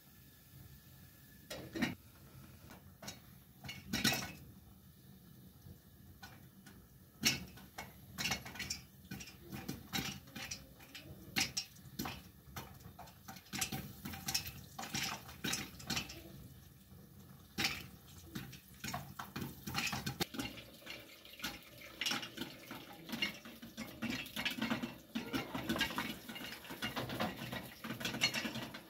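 Steel cooking pots and their lids clinking and clattering on a gas stove as they are handled, in irregular knocks that come thicker in the last third.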